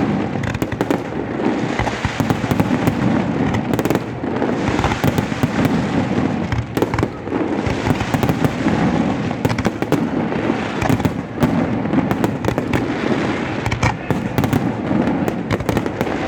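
Fireworks display: a dense, unbroken barrage of bangs and crackles, one burst overlapping the next.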